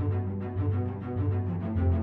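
News theme music under a headline title card, with a deep bass line of held notes and a steady beat.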